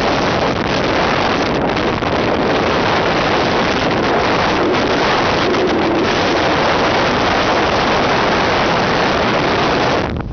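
Strong wind buffeting the microphone over the rush of heavy seas breaking white along a cargo ship's hull. A loud, steady roar of noise that eases just at the end.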